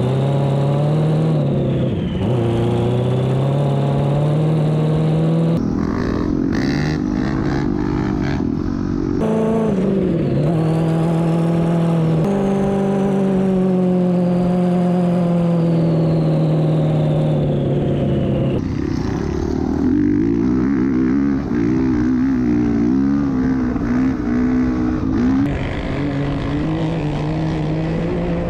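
Engines of a side-by-side UTV and dirt bikes running at speed, their pitch rising and falling with the throttle, with a high whine that climbs and drops. The sound changes abruptly several times.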